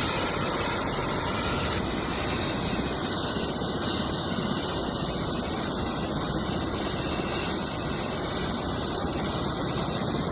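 Helicopter running close by, heard as a steady, even rushing hiss of turbine and rotor wash.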